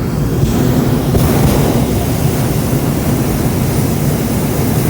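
Hot air balloon's propane burner firing: a loud, steady roar that cuts in suddenly just before this and keeps going.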